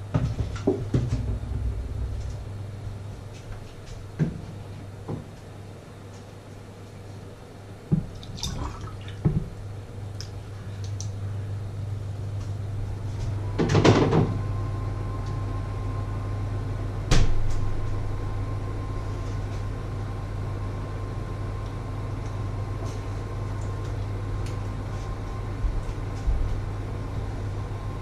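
Scattered knocks and clatters of objects being handled and set down, with the loudest, longest clatter about halfway through, over a steady low hum.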